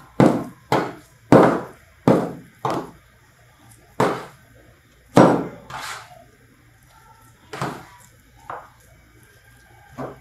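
Wet sourdough bread dough slapped down onto a tabletop again and again as it is worked by hand. About ten sharp, wet slaps come in quick succession over the first three seconds, then more spaced out, roughly one every second or so.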